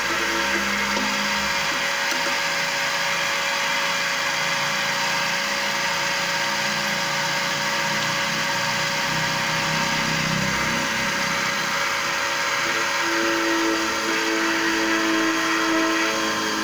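Vertical key-cutting machine running, its motor-driven cutter milling a metal key blank to copy a key: a steady whirring with a whine that grows stronger near the end.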